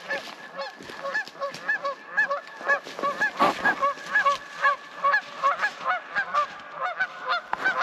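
A flock of geese honking: many short calls overlapping, several a second, without a break.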